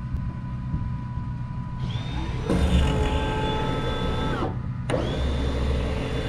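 Electric drill boring a long bit through a wooden post, the motor winding up to speed, holding, and winding down twice: once about two seconds in and again just after the middle.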